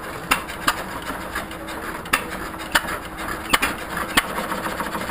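1937 John Deere hit-and-miss engines running and driving ice-cream freezers. They fire with sharp, unevenly spaced pops, about six in five seconds, coasting between the firing strokes.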